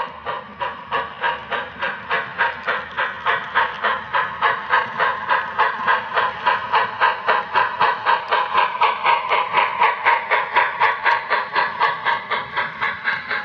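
HO scale model steam locomotive's chuffing sound, a steady rhythm of about four chuffs a second as it pulls a freight train out.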